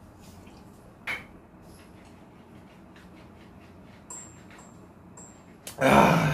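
A man drinks a glass of makgeolli down in one go, with a few faint sounds from the glass and his throat. Near the end he lets out a loud, sudden open-mouthed "ahh" as he finishes the drink.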